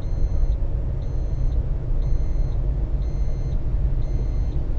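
Car road noise heard inside the moving car, a steady low rumble, with a dashboard warning chime beeping about once a second.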